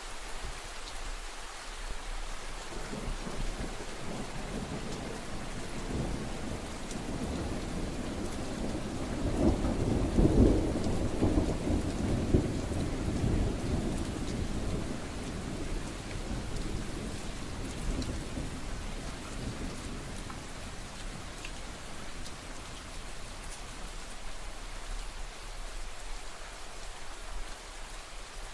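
Steady rainfall hissing, with a long low roll of thunder that swells about a third of the way in, peaks near the middle and dies away over several seconds.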